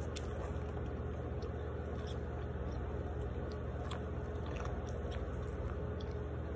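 A person chewing food close to the microphone, with small scattered clicks, over a steady low hum.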